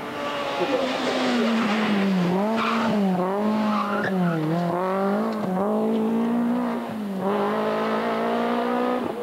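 Rally car engine revving hard, its pitch dipping and climbing again several times as it goes through the gears, holding a high steady note near the end.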